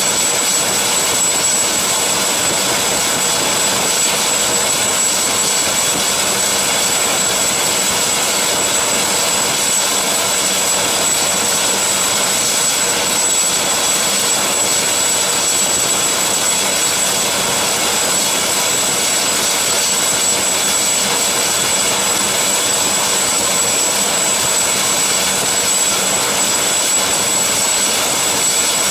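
Turbine helicopter running at ground idle with its rotor turning: a steady turbine whine with a high, even tone over a constant rushing hiss.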